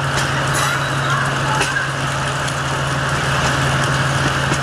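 Diesel train running slowly, a steady low engine hum with wheel and running noise, heard from an open coach window; a few sharp clicks in the first two seconds.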